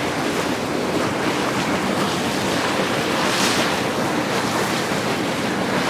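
Steady, loud rushing hiss of a boiling hot-spring pool and its steam.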